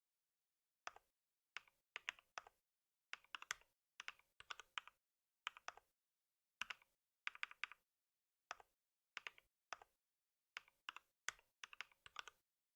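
Typing on a computer keyboard in short bursts of a few keystrokes each, with brief pauses between them.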